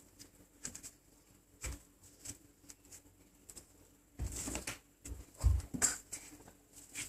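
Soft scattered knocks, then a few heavier thumps about four to six seconds in, as a foam squishy toy is kicked against a wall.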